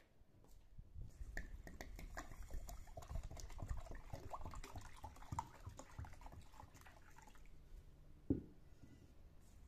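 Water poured from a clay jug, splashing into a bowl for several seconds, then one knock near the end as the jug is set down on the concrete floor.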